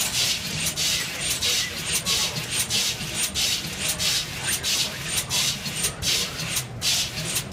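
Rapid, regular bursts of hissing air, about two or three a second, typical of pneumatic valves exhausting on an automated machine cycling quickly.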